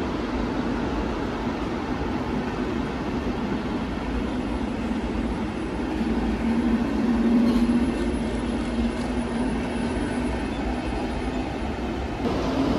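A train moving through the station: a steady rumble that grows louder about halfway through, then eases back.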